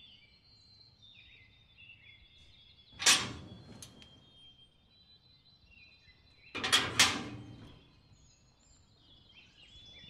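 Wrought-iron gate being opened with a sharp metallic clank about three seconds in, then shut with two loud clangs around seven seconds, with birds chirping throughout.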